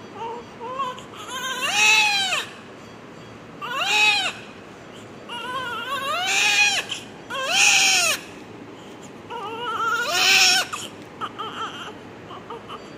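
Newborn baby crying: about five loud wails, each rising then falling in pitch, with short whimpering sounds in the gaps between them.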